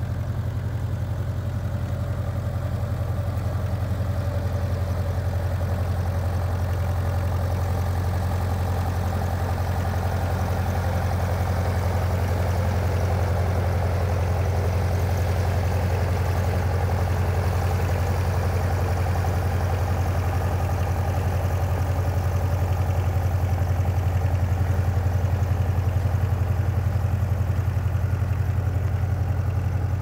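ASV RC50 compact track loader's diesel engine running steadily as the machine drives on its rubber tracks, a constant low drone that swells slightly toward the end.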